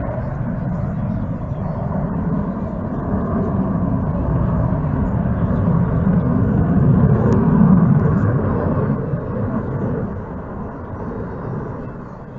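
Fixed-wing aircraft flying past overhead. Its low, noisy engine sound builds to a peak about seven or eight seconds in, then fades away.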